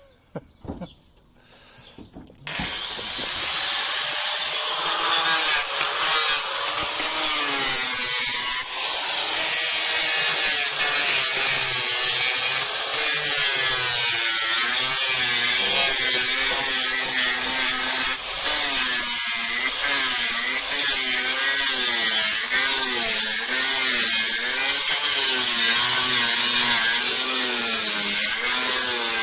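Makita 115 mm angle grinder with a 24-grit sanding disc starting up about two and a half seconds in, then running continuously as it sands old paint off a wooden sash window frame. The motor note wavers up and down as the disc is worked against the wood.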